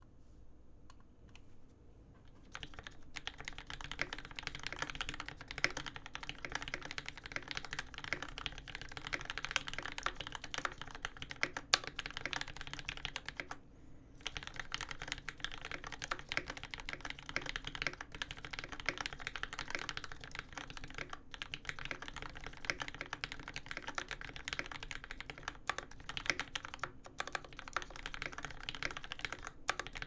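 Continuous fast typing on a custom mechanical keyboard: Dolphin v2 case with aluminium plate, lubed Tealios v2 linear switches and GMK keycaps. Sparse keystrokes for the first couple of seconds build into a dense stream of clacks, with a brief pause about halfway.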